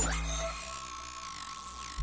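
Electronic sound effect that starts suddenly: a deep low rumble under a steady high tone, with higher tones wavering up and down over it.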